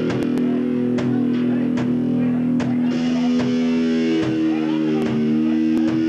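Live rock band playing: electric guitar ringing out held chords over a steady drum beat, a hit a little under once a second.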